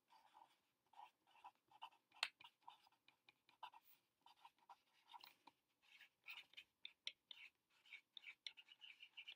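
Faint scratching of a pen on lined notebook paper while writing, in short irregular strokes that come more often in the second half.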